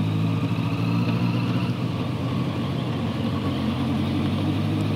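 Suzuki motorcycle's engine running steadily as the bike is ridden at low city speed, an even note that holds without revving up or down.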